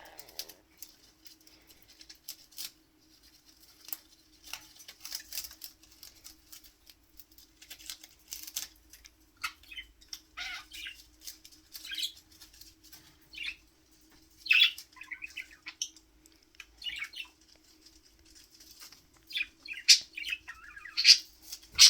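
Budgie making scattered short, scratchy chirps with small clicks and rustles between them, the chirps coming thicker and louder near the end; a faint steady hum runs underneath.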